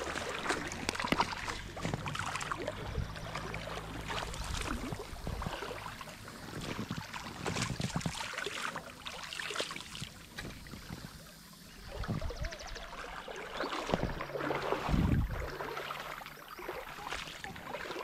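Water running over a shallow river rapid beside a kayak, with irregular splashes and knocks as a just-hooked fish is played and handled at the boat's side.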